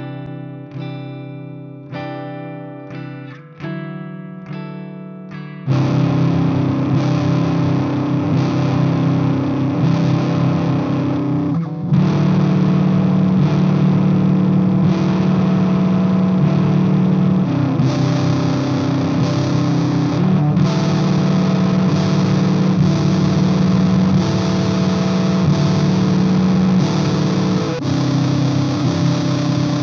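Electric guitar played through a Peavey 6505MH amp: a few clean picked chords that ring and decay, then about six seconds in a Death By Audio Fuzz War fuzz pedal kicks in and heavy, fuzz-distorted low chords and riffs are held for the rest.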